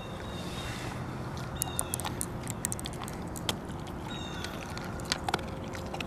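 Dog crunching a hard biscuit treat, with quick runs of crisp crunching clicks from about a second and a half in and again near the end. A few short high chirps sound in the background.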